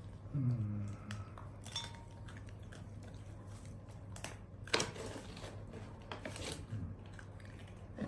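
Scattered small clicks and crunches of a pet monkey handling and chewing dried banana, the sharpest about two-thirds of the way through. About half a second in there is a short low voice sound, falling in pitch.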